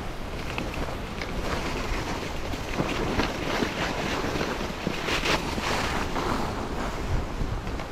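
Wind noise rumbling on the microphone of a skier gliding downhill, with cross-country skis hissing and scraping irregularly on the packed snow.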